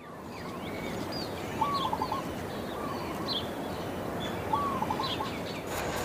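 Wild birds calling over a steady background hiss of forest ambience: repeated short, arched whistled calls with scattered higher chirps.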